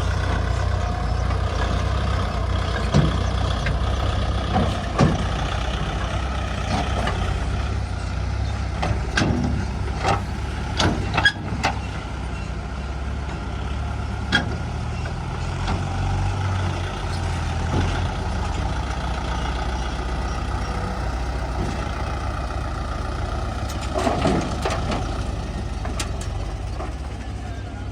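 Diesel engine of heavy earth-moving machinery running steadily, with sharp metallic clanks now and then, several close together about ten seconds in and again near the end.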